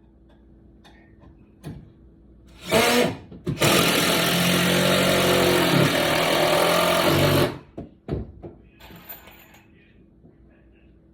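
Handheld power tool run twice: a short burst about three seconds in, then a steady run of about four seconds that stops suddenly, with a few knocks after it.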